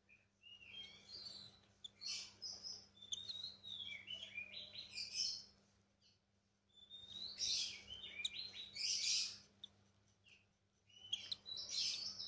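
Lovebird chicks giving high, rapid chirping begging calls as they are hand-fed, in three bouts with short pauses between.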